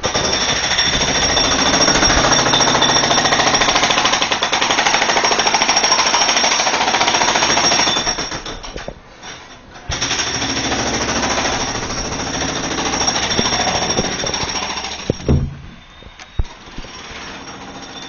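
Jackhammer hammering in two long, loud runs: it stops about eight and a half seconds in, starts again about a second and a half later, and stops for good about fifteen seconds in.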